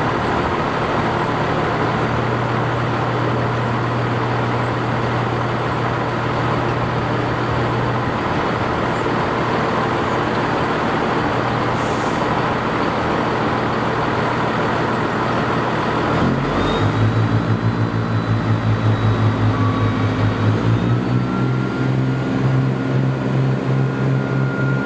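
Diesel multiple unit's engine idling steadily, then about two-thirds of the way through it opens up and runs harder with a pulsing beat as the train pulls away, its note stepping up near the end.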